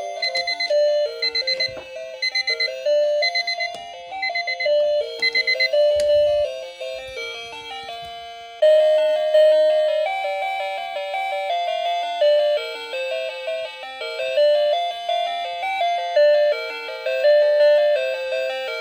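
Electronic alarm clock playing a simple melody in plain beeping tones. For the first several seconds a fast, high beeping pulses alongside it. About eight or nine seconds in, the melody starts over, louder and without the beeping.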